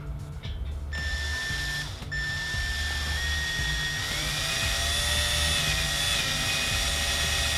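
Cordless drill spinning a bit into half-inch PVC pipe: a steady motor whine that starts about a second in, stops briefly, then runs on with the pitch wavering a little as the bit cuts into the plastic.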